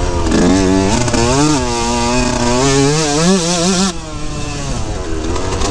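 2003 Yamaha YZ125's 125 cc single-cylinder two-stroke engine revving hard under acceleration, its pitch rising and wavering with the throttle. About four seconds in it drops off as the throttle closes, then climbs again near the end, with wind rushing over the microphone.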